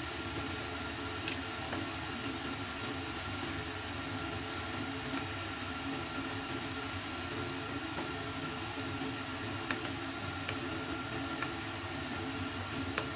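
Steady background hum and hiss, with a few light clicks of a metal spoon against a glass bowl as pancake batter is stirred.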